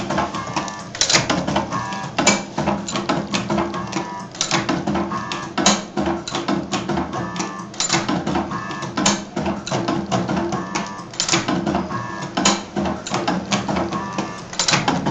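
Automatic wire cutting and stripping machine running through its cycle: a short motor whine as the rollers feed the wire, then a sharp clack as the blades cut and strip, repeating about once a second over a steady hum.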